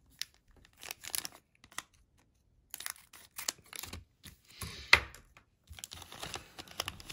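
A sealed trading-card pack's wrapper being torn open and crinkled by hand, in a run of irregular crackles and rustles, loudest about five seconds in.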